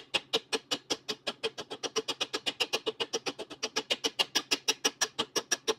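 Small hammer tapping rapidly and evenly against a dolly through a 1969 Triumph TR6 Rostyle wheel cover, about eight ringing metallic taps a second. This is planishing out dents in the cover's hard metal.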